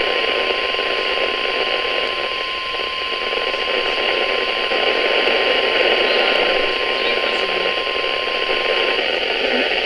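NOAA Weather Radio warning alarm tone: one steady tone held for about nine seconds through a receiver's static hiss, then cutting off. It signals that a new warning message follows.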